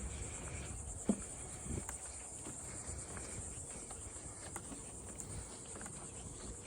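Insects in the marsh making a steady high-pitched buzzing trill. A single short knock sounds about a second in.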